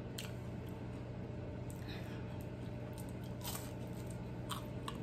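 Crisp fried spring roll being bitten and chewed close to the microphone: scattered short, sharp crunches over a steady low hum.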